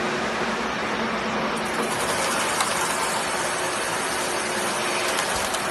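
Hydraulic steel pipe chamfering machine running: a steady hum with a low tone under a broad noise, and a higher hiss joining in about one and a half seconds in.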